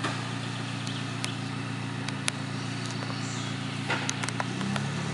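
UAZ off-road vehicle's engine running at low, steady revs, with scattered sharp clicks and knocks over it. The engine note rises slightly near the end.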